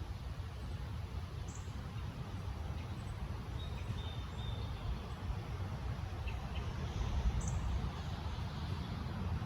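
Low, steady rumble of distant road traffic, with a few faint, high bird chirps twice and a brief thin whistle partway through.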